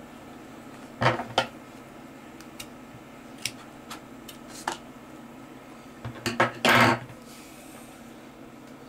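Metal scissors handled on a wooden desk: a pair of sharp clicks about a second in, a few faint ticks, then a short cluster of clatter with a brief scrape about two-thirds of the way through, the loudest sounds.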